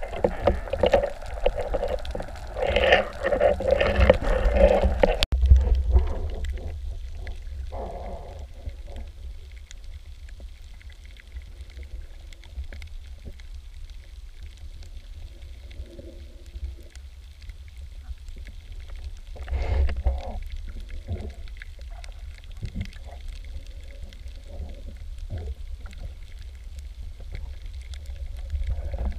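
Muffled underwater sound picked up through an action camera's housing: a steady low rumble with scattered soft knocks and gurgles. A louder, busier muffled stretch cuts off abruptly about five seconds in.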